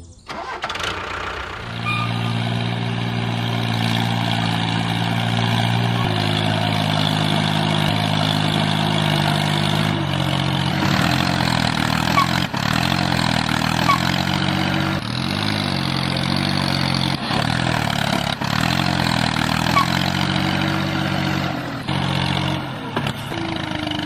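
Tractor engine starting up, then running steadily. From about the middle on, its pitch repeatedly dips and rises.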